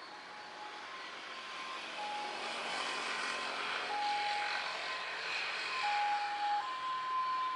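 Citilink airliner's engines at takeoff power: a broad rushing noise that swells and grows louder. A faint steady tone steps between two pitches, coming and going throughout.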